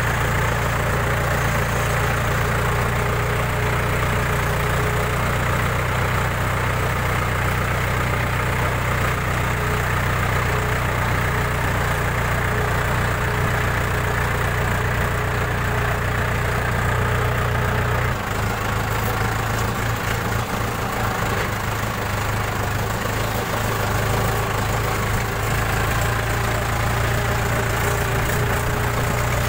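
A red farm tractor's diesel engine running steadily at low speed as it drives along a muddy track. About two-thirds of the way through, the low engine note shifts and eases slightly.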